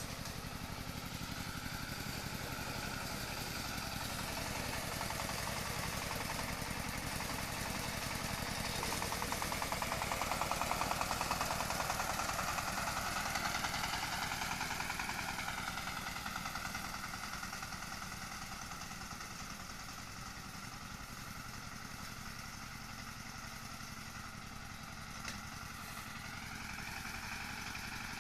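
An engine, most likely harvest machinery, running continuously. It grows louder and higher about a third of the way in, then eases back down over the following seconds.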